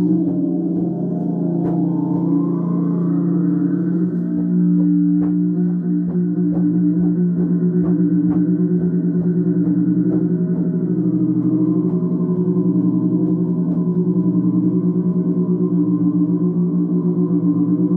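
Didgeridoo playing an unbroken low drone with shifting overtones above it, turning into a quick, regular pulsing in the second half.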